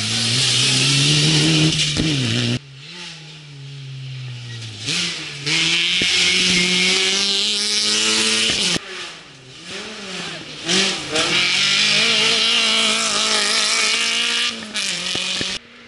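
Rally cars passing one after another at speed on a tarmac stage. Their engines rev hard, the pitch climbing and dropping back with each gear change.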